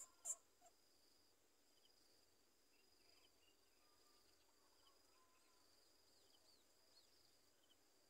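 A short, sharp bird chirp just after the start, then near silence with a faint, steady high insect drone and a few faint, scattered bird chirps.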